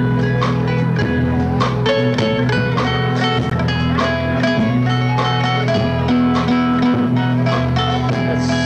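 A live country band playing an instrumental passage: guitar picking a melody over steady bass, with no singing.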